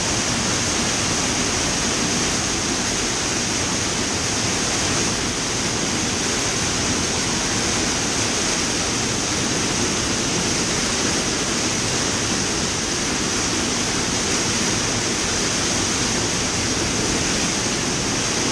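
Cave waterfall: a steady, unbroken rush of falling water splashing into a pool.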